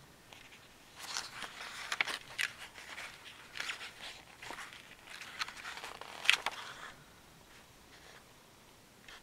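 Rustling and crinkling of a fabric bundle's packaging being handled and opened, a string of short scratchy rustles with one sharper crinkle about six seconds in, then it settles down near the end.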